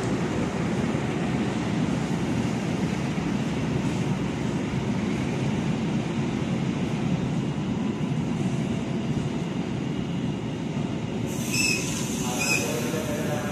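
Argo Cheribon passenger train's coaches rolling past the platform as the train enters the station: a steady rumble of steel wheels on rails. Near the end come two short high-pitched tones about a second apart.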